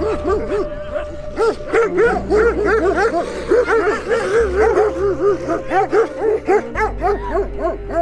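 Several sheepdogs barking rapidly and continuously, the short barks overlapping one another, over background music with a steady bass.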